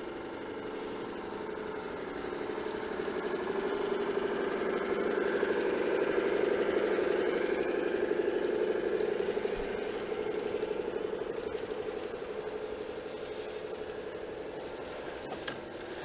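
Large-scale garden-railway model train running along the track, its diesel locomotive and freight cars giving a steady hum. The hum grows louder through the middle as the locomotive passes close by, then eases as the cars follow.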